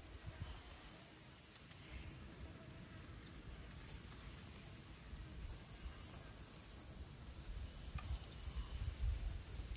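Faint outdoor ambience: an insect chirping in short high trills every second or two over a low rumble, with a couple of faint clicks near the end.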